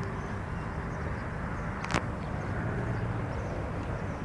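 Steady low outdoor background noise, with a single sharp click about two seconds in.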